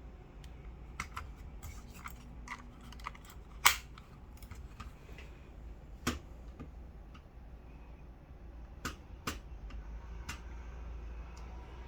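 A button being pressed again and again, each press a sharp click at uneven intervals, with one much louder click a little under four seconds in. The click is the abnormal noise the button is said to make.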